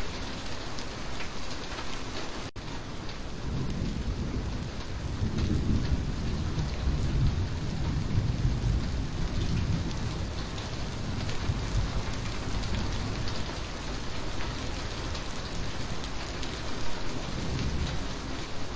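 Steady heavy rain falling, with a low roll of thunder that builds about three seconds in and fades out by about twelve seconds.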